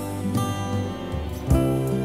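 Soft instrumental background music with plucked-string notes, a deep bass note coming in about one and a half seconds in.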